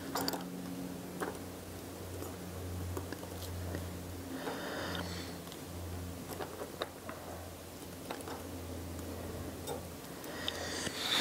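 Small scattered clicks of brass tweezers touching a pocket watch movement's plate and wheels as a gear wheel is fitted onto its pivot, over a steady low hum. A short hiss comes about four and a half seconds in, and a noisier rustle near the end.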